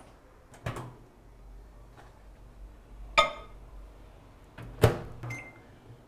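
A microwave oven being loaded and set: a few separate clunks and clicks as the dish goes in and the door shuts, the middle one ringing briefly, then a short electronic beep from the keypad near the end, over a faint low hum.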